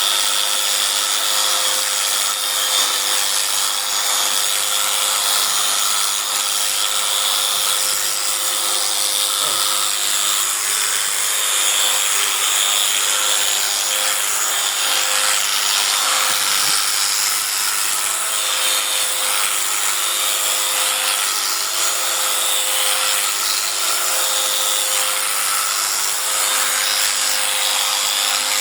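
A small motor running steadily: a constant whine with hiss, without a break.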